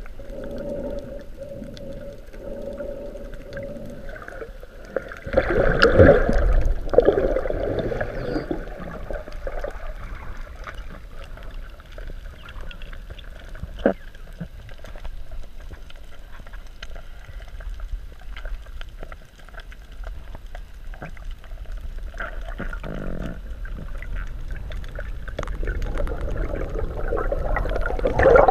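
Muffled underwater sound picked up by a GoPro in its waterproof housing: water rushing and sloshing around the camera, with a steady low hum in the first few seconds and louder rushes about five seconds in and again near the end.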